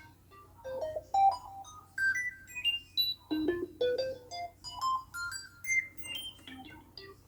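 Korg microKORG synthesizer playing short, bright notes in quick rising runs, three climbs in a row.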